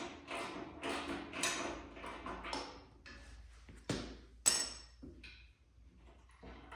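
Socket ratchet wrench clicking in short back-and-forth strokes, about two or three a second, while a fender bolt is turned out. These stop, and then come two sharp metal clinks about four seconds in, the second one ringing.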